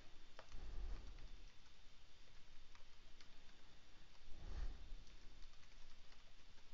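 Faint computer keyboard typing: scattered key clicks as city names are entered. A soft low thump comes twice, about half a second in and again about four and a half seconds in.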